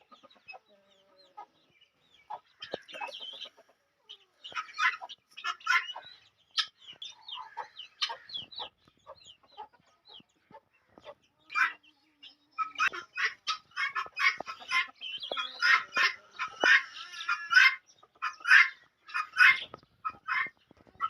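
Aseel chickens clucking in many short, quick calls, scattered at first and coming thick and fast over the second half.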